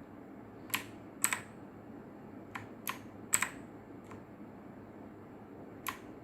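Keys of a Langtu X6000 mechanical gaming keyboard being pressed one at a time: about eight sharp clacks at irregular intervals, some in quick pairs.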